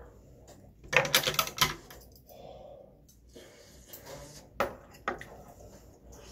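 Metal cutlery clattering against dishes: a quick run of clicks and clinks about a second in, then two single sharp clicks a little past the middle, as metal chopsticks tap the bowl.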